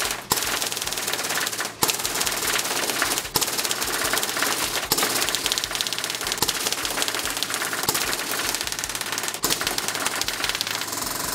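Crosman DPMS SBR CO2 blowback BB rifle firing steel BBs in a dense, continuous rattle of shots, sped up, with a few brief breaks.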